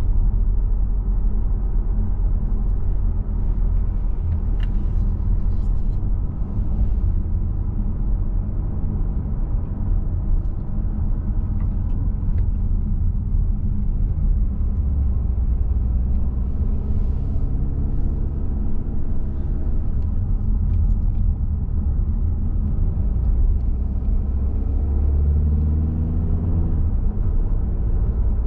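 A car driving, heard from inside the cabin: a steady low rumble of engine and tyre noise, with the engine note rising and falling a few times in the second half as the speed changes on the bends.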